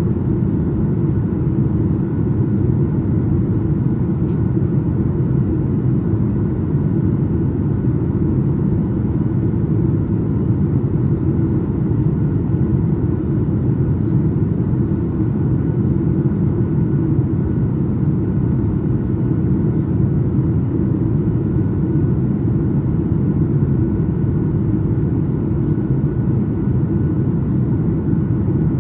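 Steady low rumble of cabin noise inside a Boeing 737-8 MAX airliner on approach: engine and airflow noise at an even level, with no changes in power.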